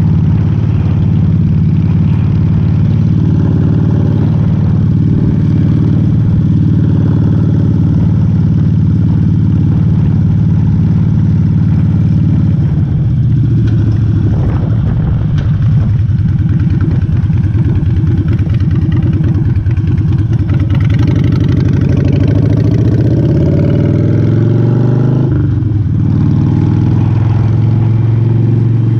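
Harley-Davidson V-twin engine with Vance & Hines short pipes running under way. Its pitch dips around the middle, then climbs steadily as it accelerates and falls suddenly at an upshift near the end.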